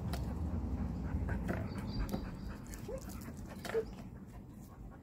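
Australian Shepherd whimpering, with two short rising whines about three seconds in, over a low rumble in the first couple of seconds.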